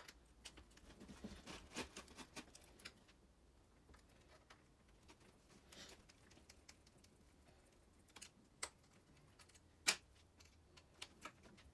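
Faint, scattered small clicks and ticks of a tool and small plastic and metal parts being handled as the screws of an RC monster truck's front suspension arm are taken out, with one sharper click late on.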